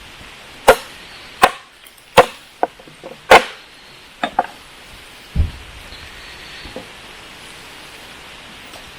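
A blade chopping into wood: a series of sharp blows, most about three-quarters of a second apart, ending with a duller thud about five seconds in.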